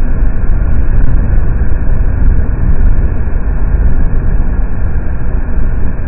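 Bryant gas furnace running with all six burners lit, the blower fan on its high setting: a loud, steady low roar.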